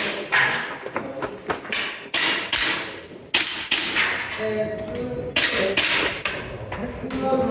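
Airsoft handgun firing a string of quick shots, sharp cracks in small clusters: a few right at the start, more around two seconds in, then around three and a half, five and a half to six, and seven seconds in.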